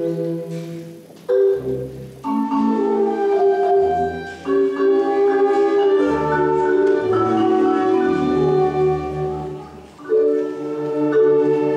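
A marimba solo accompanied by a concert wind band, playing a czardas. The band holds long chords under the marimba, going quieter briefly twice and swelling back.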